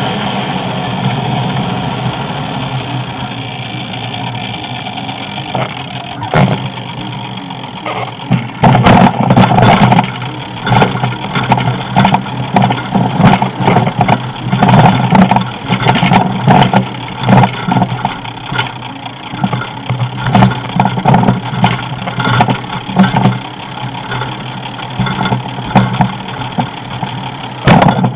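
Wind and rolling noise on a bike-mounted camera while cycling. The sound is steady at first, then from about eight seconds in is broken by loud, irregular bumps and rattles.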